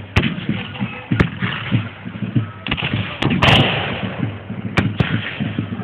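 Black-powder muskets firing blanks in a staged battle: scattered single shots about a second or two apart, with many fainter distant reports between them. A louder, longer blast comes about three and a half seconds in.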